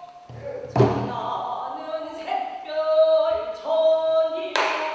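A pansori singer's voice holding long, wavering sung notes, with two sharp strokes of the buk barrel drum: one about a second in and one near the end.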